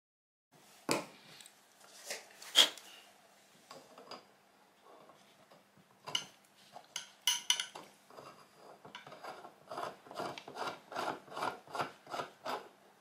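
Steel tube with a freshly tapped internal thread being screwed by hand onto a threaded steel bar: metal threads grating in a run of short rasps, about three a second, through the second half. Before that, a few sharp metallic clicks and knocks as the parts are handled.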